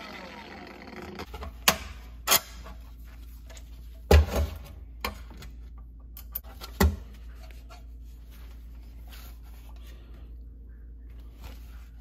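A cordless power tool spins down in the first second. Then metal parts are knocked and set down on a steel workbench: a handful of sharp clanks, the loudest about four seconds in, over a steady low hum and some handling rustle.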